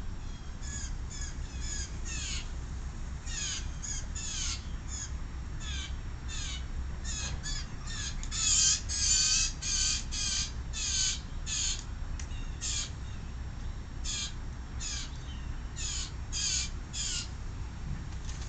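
A young blue jay calling over and over in quick, high, rasping calls that come in bouts, loudest about halfway through.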